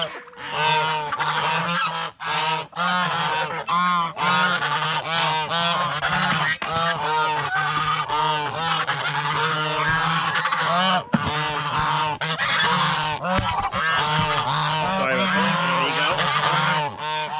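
A flock of domestic geese honking at feeding time: many loud calls overlapping, several a second.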